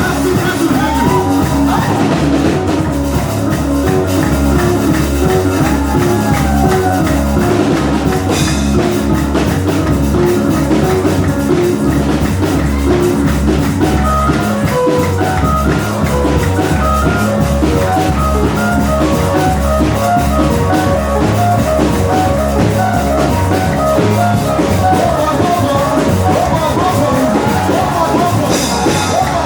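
Band music with a drum kit and guitar keeping a steady beat, and a voice singing at times, most clearly near the start and near the end.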